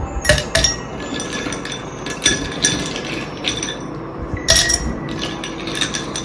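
Ice cubes dropped one after another into an empty drinking glass, giving a series of sharp glassy clinks with a brief ring, the loudest about four and a half seconds in.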